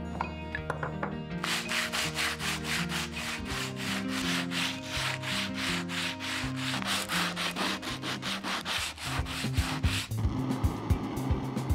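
Hand sanding of an old wooden board with quick back-and-forth strokes, about four a second, turning to a steadier scraping about ten seconds in.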